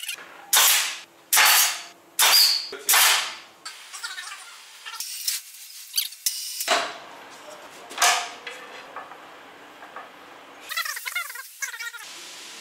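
Short, loud bursts of workshop tool noise: four in quick succession about a second apart, each dying away, then two more a few seconds later.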